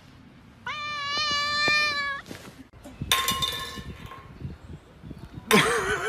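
A cat's long, drawn-out meow of protest, about a second and a half, rising at its start and then held. It is followed by clattering and clinking noises from about halfway in, the loudest near the end.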